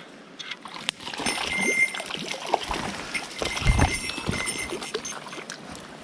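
Irregular splashing and sloshing of water as a hooked white-spotted char is fought at the surface of the river, starting about a second in, with a heavier low splash about halfway through.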